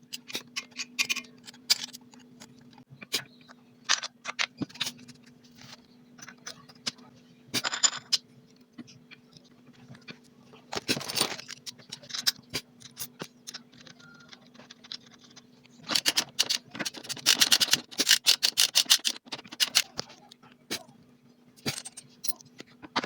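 Irregular metallic clicks, clinks and rattles of hand tools and engine parts being handled while a Yamaha F1ZR two-stroke motorcycle engine is assembled, with a quick run of clicks near the end. A faint steady hum runs underneath.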